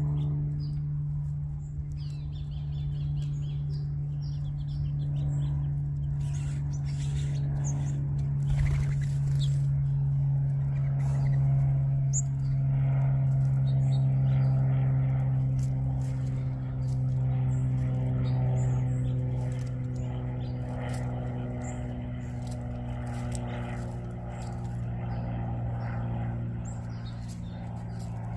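Many small birds chirping, with short high chirps scattered throughout, over a steady low mechanical hum whose pitch drifts slowly.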